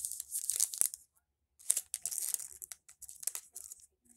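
Crinkling and rustling of trading-card pack wrappers and cards being handled, in two stretches with a short pause about a second in.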